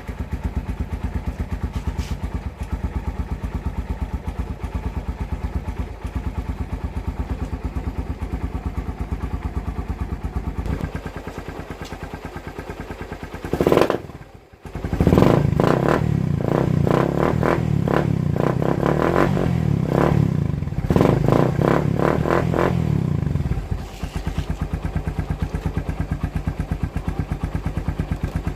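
Suzuki Raider 150 motorcycle's single-cylinder four-stroke engine running through an aftermarket EXOS R6 exhaust canister, idling with fast, even exhaust pulses. About halfway there is a sharp rise and a brief drop in level, then the engine is revved with repeated throttle blips for several seconds before settling back to idle.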